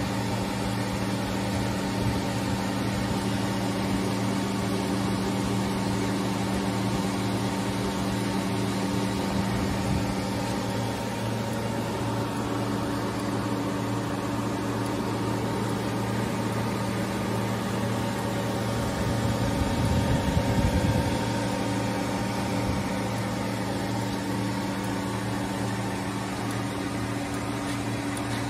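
Steady electrical hum of a powered-up CNC lathe's control cabinet with its FANUC drive modules: several steady tones over a constant hiss. A brief low rumble swells and fades about two-thirds of the way through, the loudest moment.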